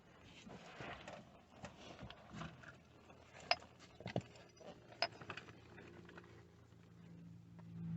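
Scattered metallic clicks and knocks of hand tools and parts being handled while a repaired gear-shift lever is fitted back onto a truck. A low hum swells near the end.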